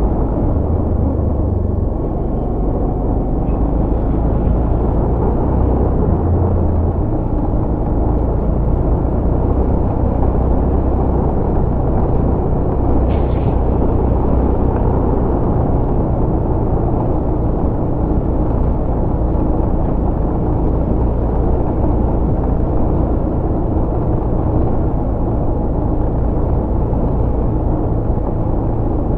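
Steady rumble of a motorcycle ride at speed: the engine running evenly under a dense wash of wind noise.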